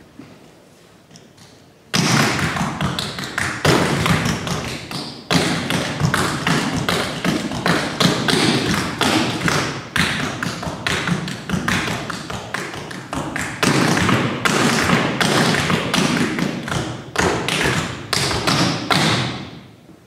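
A hand-held shaker rattled fast and hard in long phrases, starting abruptly about two seconds in, with brief breaks between phrases and stopping just before the end.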